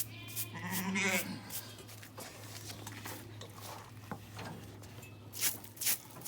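Sheep bleating once, a long wavering call, while it is held upended to have its hooves trimmed. A few sharp clicks follow near the end.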